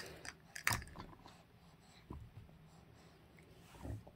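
Quiet handling sounds of a baby playing with plastic toys and a teething ring: a sharp click at the start, another shortly after, then scattered soft ticks and rustles.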